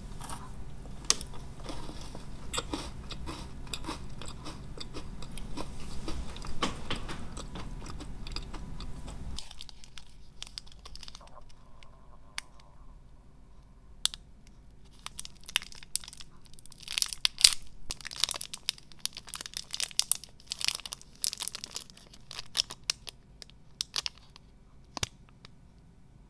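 Close-miked chewing of a crunchy snack for about the first nine seconds. After a short lull comes a long run of sharp crackles as the plastic wrapper of a KitKat bar is handled and torn open.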